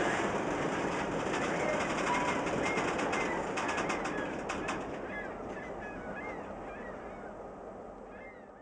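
Freight train boxcars rolling slowly past: a steady rumble of wheels on rail with a few light clicks, while birds chirp over it. The whole sound fades away near the end.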